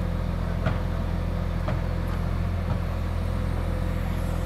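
Beiben 8x8 crane truck's diesel engine running steadily while its truck-mounted hydraulic crane holds and moves a load, with three light clicks about a second apart.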